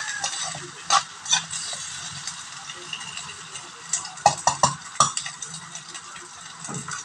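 Onions and chicken pieces sizzling in a wok as a spatula stirs them, with the spatula scraping and clicking against the pan. The clicks are sharpest in a cluster about four to five seconds in.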